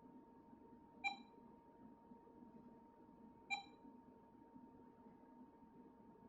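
An electronic device beeping: a short, sharp beep twice, about two and a half seconds apart, over a faint steady hum.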